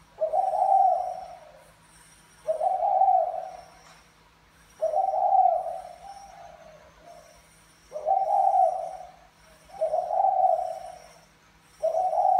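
Caged spotted dove cooing: a low, hollow phrase repeated six times, one every two to three seconds.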